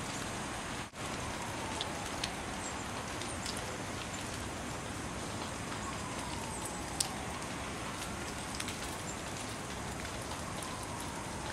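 Steady hiss of wet snow falling, with scattered faint ticks of flakes and drips landing. The sound drops out briefly about a second in.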